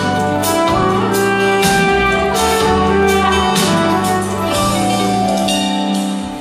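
Live band playing an instrumental passage of a Turkish pop song, a held melody line over chords, with percussion hits, heard from the audience.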